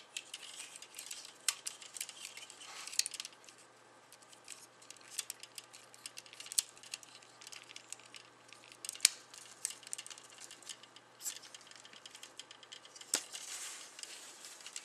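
Hard plastic model-kit armor parts being handled and pressed together: scattered small clicks, taps and scraping as the chest armor's grooves are worked over the torso tabs, with a few sharper clicks, the loudest about 9 s in.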